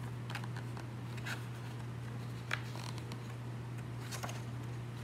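Soft paper rustles and a few small taps from a hardcover picture book being handled, its page turned near the end, over a steady low hum.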